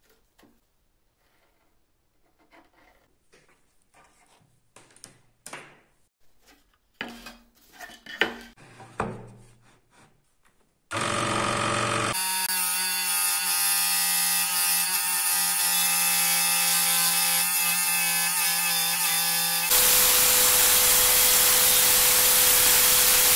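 Faint scratching of a pen drawing along a ruler on a wooden board. Then an Einhell TH-SS 405 E electric scroll saw starts suddenly and runs steadily, cutting the board. Near the end it gives way to a louder, hissing power saw cutting through a board.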